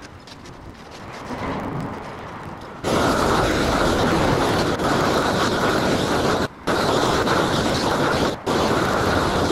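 Propane roofing torch opening up to full flame about three seconds in, a loud steady rushing hiss as it heats a roll of torch-down modified-bitumen membrane. The flame noise briefly cuts out twice near the end.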